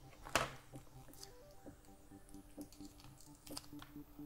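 Faint background music, a simple melody of short steady notes stepping up and down, with a few small clicks from handling a plastic digital caliper and its button battery; the sharpest click comes about half a second in.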